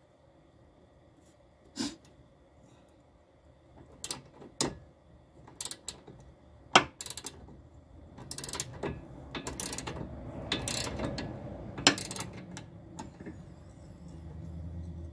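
Ratcheting wrench clicking in short, irregular runs as the nut on a sway bar end link is tightened, the clicks coming thicker about two-thirds of the way in. A low steady hum starts near the end.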